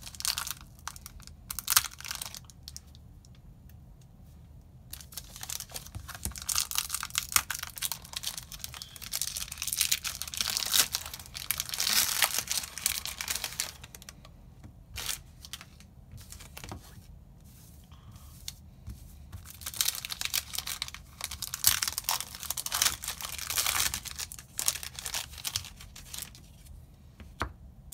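Foil wrappers of Yu-Gi-Oh booster packs being torn open and crinkled by hand, in several spells of crackling and tearing with short pauses between.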